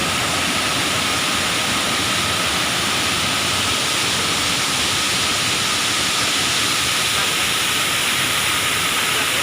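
Steady rushing of a waterfall: a loud, even roar of falling water that holds level throughout.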